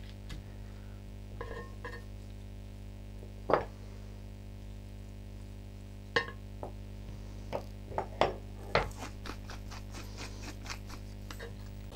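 Light clinks and taps of a metal meat fork and kitchen utensils against an unglazed clay roasting pot as a pork roast is handled and seasoned: a handful of separate sharp taps, then a quick run of small ticks near the end. A steady low hum runs underneath.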